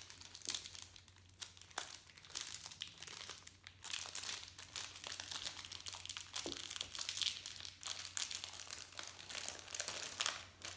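Plastic wrapping being crinkled and pulled off a boxed speedcube: irregular crackling with small sharp snaps throughout.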